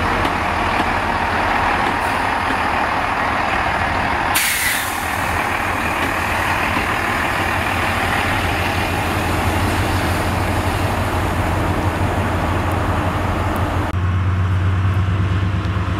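Diesel trains running past: a steady low engine drone with rolling noise over the rails, and a brief sharp hiss about four seconds in. Near the end the rolling noise fades and the deep drone of a Colas Rail Freight Class 70 locomotive's 16-cylinder GE PowerHaul diesel engine comes to the fore as it passes close by.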